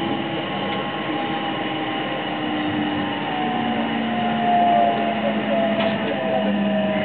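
Interior running sound of a JR West 225-series electric train with Toshiba traction equipment: the inverter and traction motors whine in several steady tones that drift slowly lower, over the rumble of wheels on the rails.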